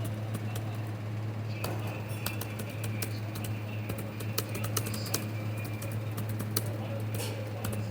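Computer keyboard being typed on: quick, irregular key clicks, several a second, over a steady low hum.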